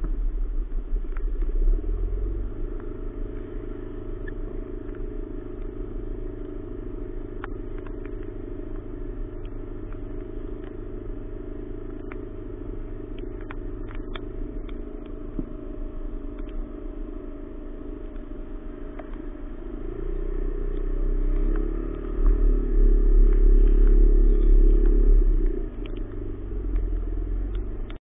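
Motor scooter engine idling in stop-and-go traffic, heard close up. It grows louder about twenty seconds in as the scooter moves forward and eases off again near the end. Faint scattered ticks sound over the hum.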